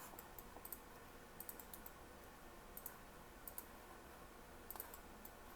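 Faint, scattered clicks of a computer mouse and keyboard being worked, in small irregular groups, over near-silent room tone.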